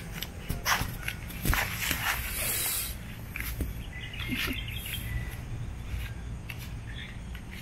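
Rustling of tent fabric and bedding as a camera is moved about inside a tent, with a few soft knocks and clicks and a short hiss about two and a half seconds in.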